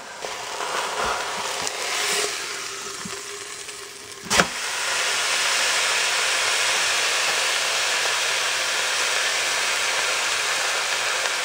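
Seasoned beef chuck roast searing in the hot stainless inner pot of an Instant Pot on the sauté setting: a steady sizzle that grows louder after a single knock about four seconds in.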